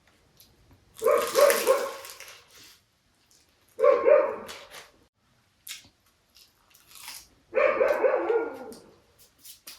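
Dogs barking in three bursts of quick barks, about a second in, around four seconds in, and near eight seconds in.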